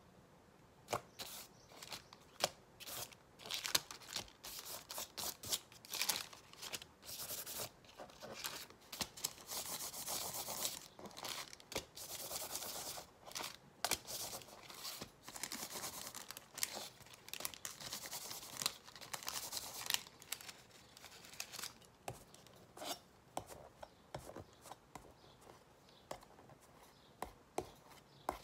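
A folded strip of paint-loaded paper scraped, dabbed and rubbed over an acrylic-painted canvas pad: papery scrapes and crinkles in quick strokes, coming thick and fast through the middle, then sparser near the end.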